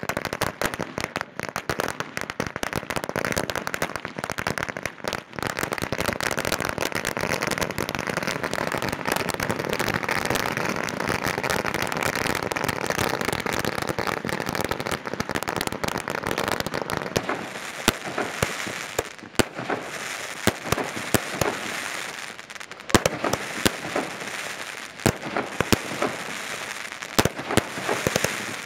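Ground firecrackers exploding in rapid succession: a dense, continuous crackle of bangs for about the first two-thirds, then thinning into separate sharp cracks.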